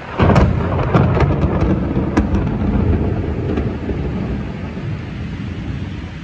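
A close thunderclap: a sudden sharp crack with several crackles over the first two seconds or so, then a rolling rumble that slowly fades.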